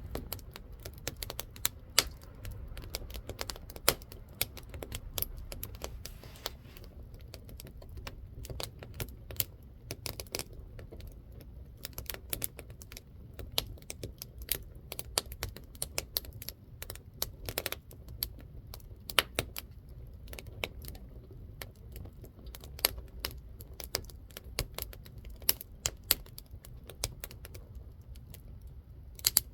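Burning firewood crackling, with many irregular sharp pops and snaps over a low steady rumble.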